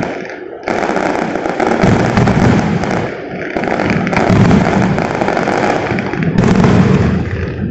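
Fireworks display: a dense, continuous barrage of bursts and crackling, with fresh loud volleys starting about a second in, at about four seconds and again past six seconds.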